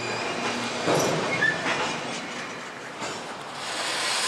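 Freight train's covered hopper cars rolling past, wheels clattering over the rails with a few knocks and a short high wheel squeal about a second and a half in.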